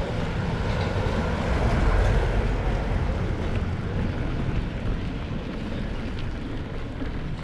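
Wind buffeting the microphone: a steady rushing noise, heaviest in the low end, swelling briefly about two seconds in.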